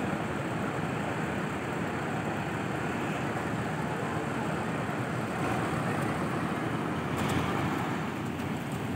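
Steady traffic noise of buses and other vehicles running at a bus terminal, with a brief louder swell about seven seconds in; no horn calls.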